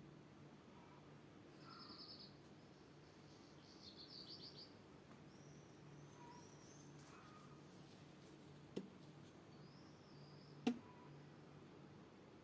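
Faint birdsong: short high chirps and quick trills from small birds, over a steady low hum. Two sharp clicks, the second and louder one near the end.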